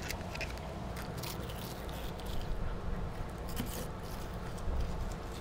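Flexible fillet knife cutting through a kingfish's flesh along the rib bones and backbone: irregular short scraping, crunching strokes over a steady low background rumble.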